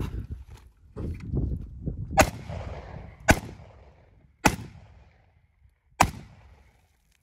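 AK-47 rifle fired four times in single shots, a second or so apart and unevenly spaced, each crack followed by a short echo trailing off.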